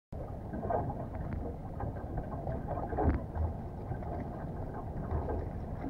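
Wind buffeting the microphone over water lapping and slapping against the hull of a motorboat lying still at sea, with a few sharper splashes about one and three seconds in.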